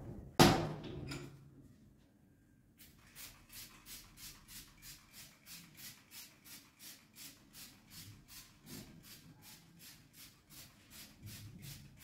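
A single sharp knock about half a second in, then steady rhythmic rubbing strokes, about three a second, of a door being scrubbed by hand.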